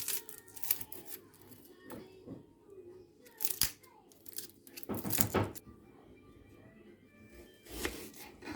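Irregular tearing and rustling noises of ingredients being handled and prepared, several separate bursts with the longest about halfway through, over faint background music.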